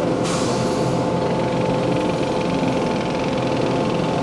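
Steady engine and machinery drone aboard a ship, with a constant hum and a short burst of hiss about a quarter second in, heard through a Video8 tape recording.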